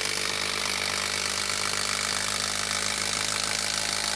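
DeWalt 12V Xtreme brushless impact driver hammering steadily as it drives a long TimberLOK structural screw into a wooden log round.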